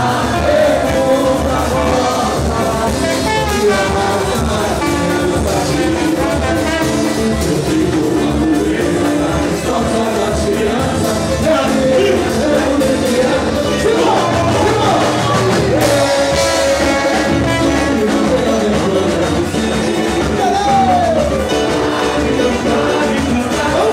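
Lively Brazilian carnival band music with a singer, loud and unbroken.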